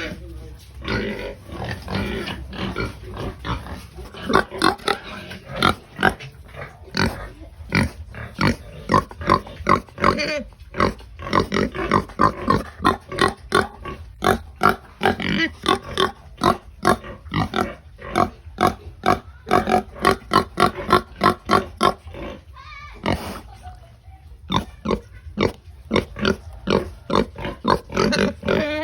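Pigs grunting noisily as they are fed: a rapid string of short calls, several a second, with a brief lull about two-thirds of the way through.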